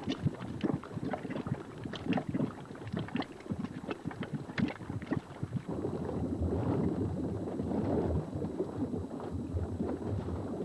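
Grey volcanic mud pool boiling, with irregular bubbling and popping that thickens into a denser gurgle about halfway through; the water is brought to the boil by volcanic steam rising through the crater floor.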